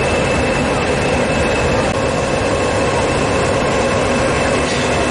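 Class 20 diesel-electric locomotive passing close by at slow speed, its English Electric diesel engine running steadily with a high, steady whine above the engine note.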